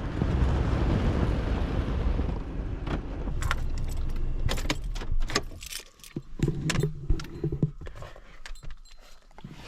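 Steady low rumble, like a car's road noise, that dies away after about two and a half seconds. It is followed by a run of sharp metallic clicks and jangling, keys or gear being handled.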